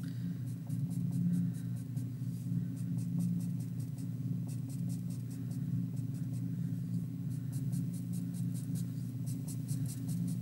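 Thick Sharpie marker on paper, drawing many short lines in quick strokes, one after another. A steady low hum runs underneath.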